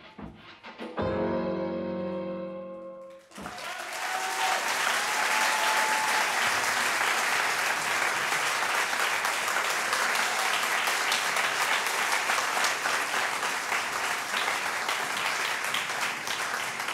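A swing song ends on a held closing chord, then about three seconds in a theatre audience breaks into steady applause that carries on to the end.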